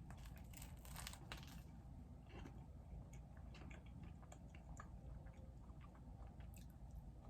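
Faint, close-miked eating sounds: a person chewing and biting food, with many small crunchy mouth clicks and a denser run of crunches about a second in.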